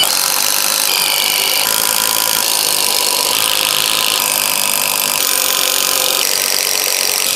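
Cordless impact drivers of several brands driving 20 cm screws into stacked timber, one run after another: a steady, unbroken hammering of the drivers' impact mechanisms as the long screws bite into the wood.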